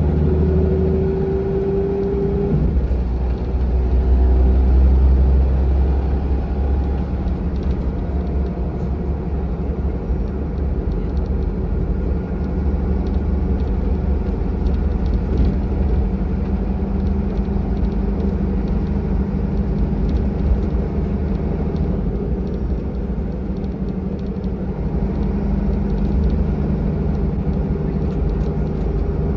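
Volvo B7R bus's diesel engine and drivetrain heard from inside the cabin while under way, a deep steady rumble with road noise. A whine rises in pitch over the first couple of seconds as the bus picks up speed, then levels off into a steady cruising drone.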